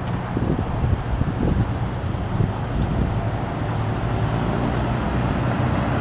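Pickup truck approaching and driving past, a steady low engine hum with tyre noise.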